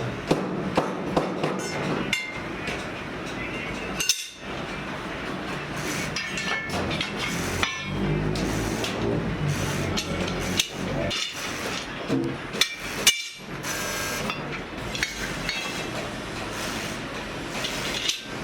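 Hammer blows on a steel leaf spring, irregular metallic strikes with a bright ring after some of them.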